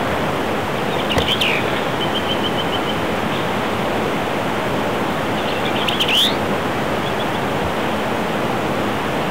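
Short chattering songbird phrases, one about a second in and another about six seconds in, with a few fainter high notes between, over a steady rushing hiss like distant surf or running water.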